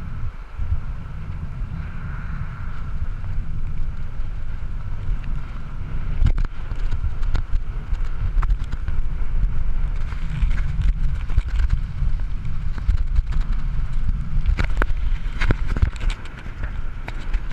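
Wind buffeting the microphone of a hand-held action camera on a fast bicycle descent, a steady low rumble with a few sharp knocks, most of them near the end.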